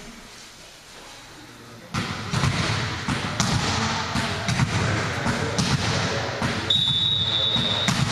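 Volleyball gym between points: from about two seconds in, irregular thuds and knocks like a ball being bounced on the court floor, over hall noise. Near the end a referee's whistle gives one steady blast of just over a second, the signal to serve.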